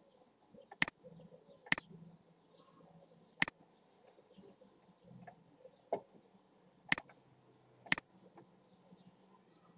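Computer mouse button clicking: about six short, sharp clicks at uneven intervals, with faint room noise between them.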